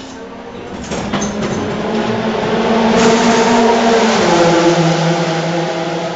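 Race car engine running in the pit lane, a steady tone whose pitch drops about four seconds in, over a rushing noise that swells through the middle.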